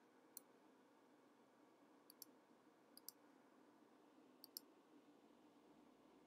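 Faint computer mouse clicks, mostly in quick pairs, three pairs after a single click, over a low steady room hum.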